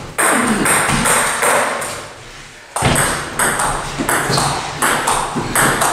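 Table tennis ball striking bats and the table in a quick series of sharp pings, about three a second, with a short lull around two seconds in before the strikes start again.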